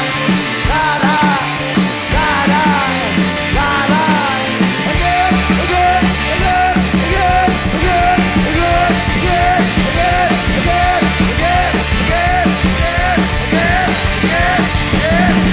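Background rock music with a steady beat and a repeating melody. The bass fills out about five seconds in.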